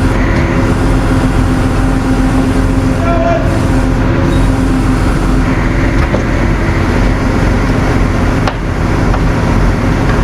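A heavy vehicle engine running steadily with a constant hum, typical of a tow truck's engine running during a recovery.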